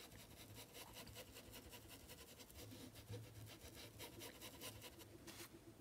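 Faint, rapid scratchy rubbing of a paintbrush working paint into fabric in small circular strokes.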